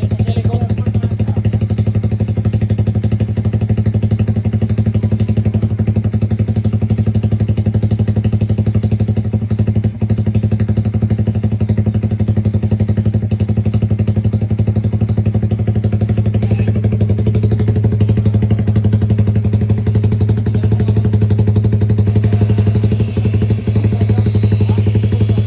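Suzuki Raider 150 Fi's single-cylinder engine idling steadily through an open aftermarket Jecspeed 'super open' exhaust. The exhaust note is loud and deep and does not rev.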